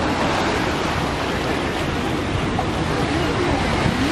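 Black Sea waves washing and swirling over shoreline rocks and pebbles, a steady rush of surf.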